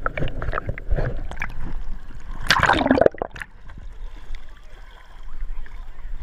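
Water sloshing and gurgling around a camera dipped in and out of shallow seawater. The loudest splash comes about two and a half seconds in, followed by a quieter, muffled stretch while the camera is under the surface.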